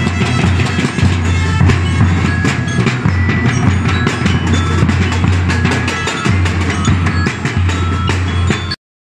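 Marching drum line of a street drum and bugle band playing: bass drums and green barrel-shaped drums beaten in a fast, dense rhythm, with short ringing higher notes over them. The music cuts off suddenly near the end.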